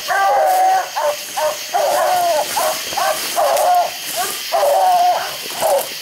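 Coonhounds barking treed on a raccoon: a steady run of short chop barks mixed with longer drawn-out bawls, about two or three a second.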